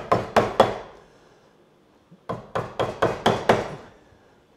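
Small mallet striking a chisel to chop into the wood at the dovetail shoulder: sharp knocks about four a second, three near the start, then a pause, then about six more.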